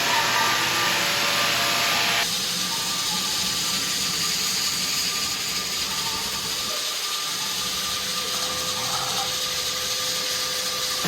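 Floor sanding machine with a dust-collection bag running steadily on a wood floor during refinishing. The sound changes abruptly about two seconds in.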